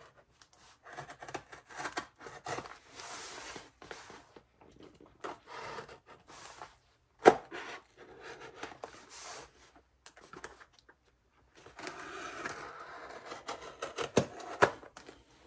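Slim single-blade pocket knife slitting open the seams of a cardboard mailing box, in short scraping strokes with pauses between them. A sharp click comes about seven seconds in, and a few more clicks near the end.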